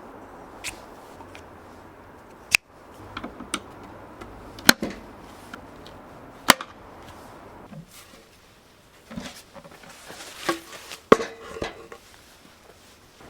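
Workshop handling sounds: scattered sharp clicks and knocks of tools and parts being picked up and set down, with four louder knocks spread through and some brief rustling between.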